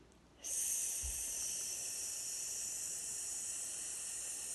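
A person taking one long, slow deep breath close to the microphone: a steady airy hiss that starts about half a second in and holds evenly for about four seconds.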